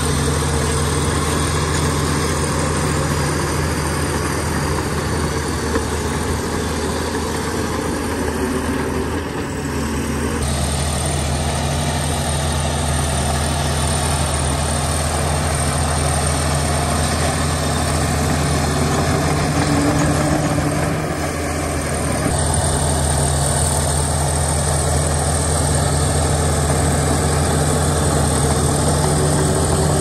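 Heavy diesel engines of earthmoving machinery, a bulldozer and dump trucks, running steadily with a low, even drone. The sound changes abruptly twice, about a third and about three quarters of the way through.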